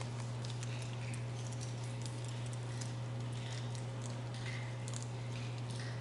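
Scattered light ticks and crinkles of hands handling a small item, over a steady low hum.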